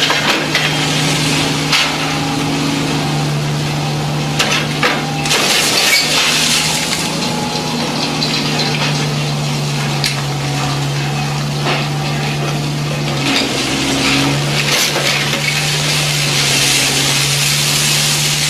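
Small electric motor of an RC construction toy humming steadily, with gritty scraping, rattling and scattered clicks of soil and pebbles being moved.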